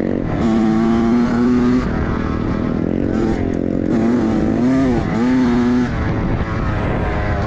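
Dirt bike engine running, its pitch mostly holding steady with small swings, a brief dip and recovery about five seconds in, and a drop near the end.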